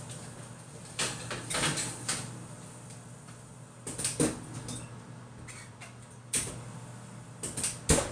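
Scattered clicks and clatters from an oven pan and rack being handled at an open oven, with the loudest knock, a thud, near the end.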